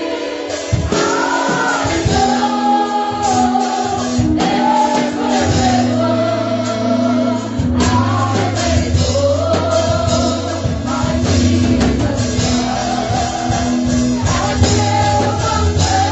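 Live gospel worship music: voices singing a melody over a keyboard, with long held bass notes underneath.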